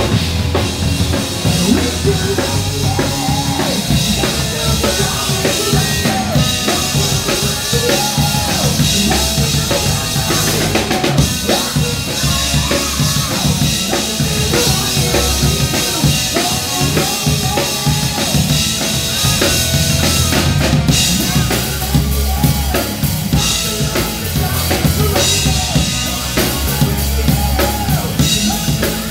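Live rock band playing: electric guitars and bass over a full drum kit with bass drum and snare, loud and steady.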